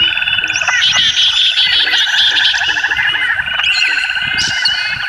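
A loud, dense chorus of calling animals, pulsing steadily, with short high chirping calls over it and short low calls beneath.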